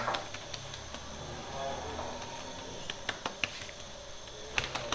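Workroom sound: a low steady hum under faint background voices, with a few sharp clicks about three seconds in and again near the end.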